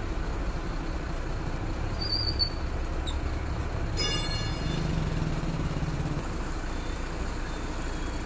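A heavy vehicle engine running steadily with a low rumble, the machinery working the lift of a metro coach. About four seconds in, a brief high-pitched tone sounds over it.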